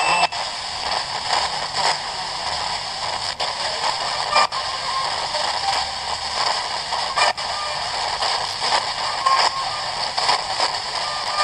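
Static hiss from an XHDATA portable radio's FM band with no station coming through, broken by several brief dropouts and a few short faint chirps.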